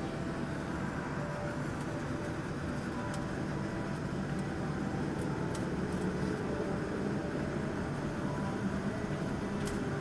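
Steady cabin noise of a jet airliner taxiing after landing: engines at idle and the hum of the cabin air system, heard from inside the cabin at an even level.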